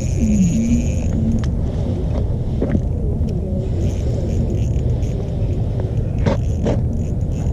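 Wind buffeting the microphone, a steady low rumble, with a couple of sharp clicks about six seconds in.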